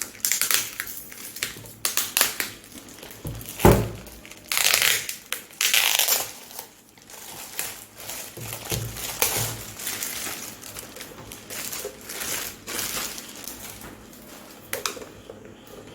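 Packaging being crinkled and crushed by hand in irregular rustling bursts while the amplifier is unpacked, with one sharp knock a little under four seconds in.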